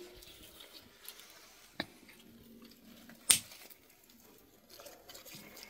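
Two short, sharp clicks about a second and a half apart, the second louder, against a quiet background.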